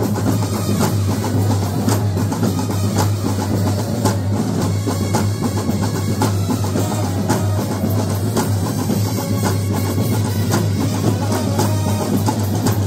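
Several Kerala band set troupes playing one song together, a marching brass band led by a dense, driving beat of snare and bass drums.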